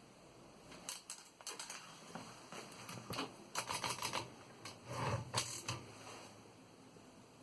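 Royal Standard No. 5 manual typewriter being typed on: irregular key strikes, with a quick run of strokes in the middle and a heavier thump about five seconds in, stopping about six seconds in.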